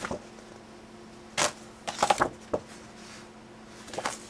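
Card sleeves and paper booklets being handled and set down: short rustles and taps about a second and a half in, a cluster around two seconds, and again near the end, over a faint steady hum.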